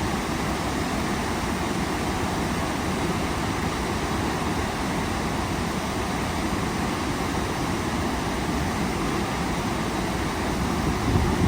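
Waterfall roaring steadily, a constant rush of falling water, with a brief low thump near the end.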